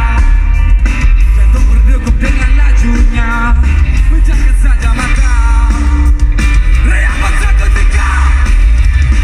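A rock band playing live, with singing over guitar and a heavy, steady bass.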